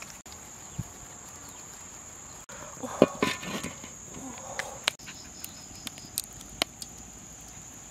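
A steady, high insect chirr, with scattered sharp clicks. About three seconds in there is a loud knock and rattle.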